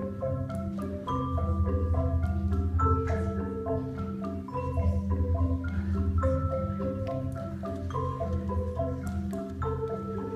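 Background music led by a marimba or xylophone, playing quick melodic notes over a steady bass line.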